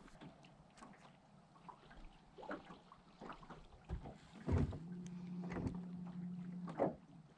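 Scattered light knocks and clunks on a bass-fishing boat. A steady low hum comes in past the middle and lasts about two seconds.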